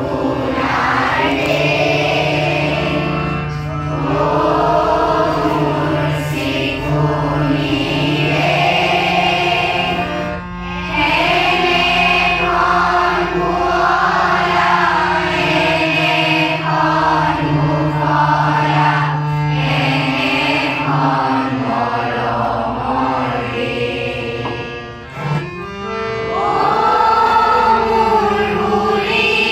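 A group of school students singing a song together in unison, over a steady low drone from a harmonium. The singing breaks off briefly near the end and then picks up again.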